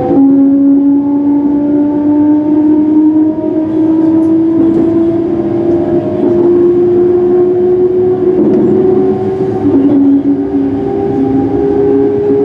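Class 385 electric multiple unit's traction motors whining under the carriage floor, several tones slowly rising in pitch as the train gathers speed, over wheel and rail rumble. The whine shifts to a new note at the very start.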